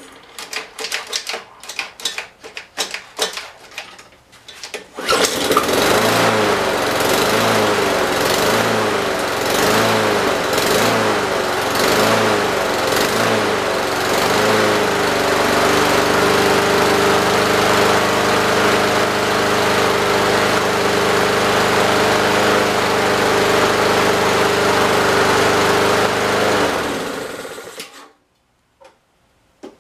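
Honda GCV160 lawn mower engine, cold-started on a newly replaced thermowax auto choke: it pops and fires unevenly for about five seconds, then catches. It runs at first with a rising-and-falling surge about once a second, settles to a steady run about ten seconds later, and shuts off near the end.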